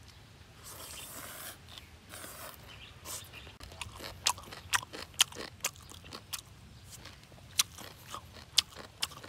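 A man eating green papaya and shrimp salad by hand: he slurps in long strands of the salad twice in the first few seconds, then chews with his mouth closed, making many sharp clicks.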